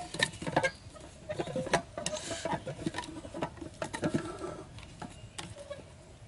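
Irregular small taps, clicks and rustles of hands handling a tin-can trap and pulling its string and plastic strip.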